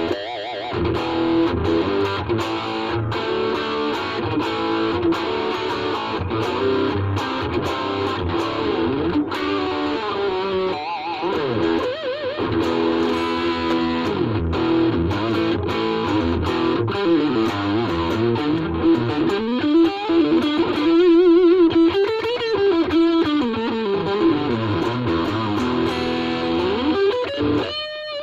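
Ibanez RG350DX electric guitar played through a Vox Soundbox Mini amp with a distorted tone: a run of picked notes and phrases, with wavering, bending pitch about two-thirds of the way through.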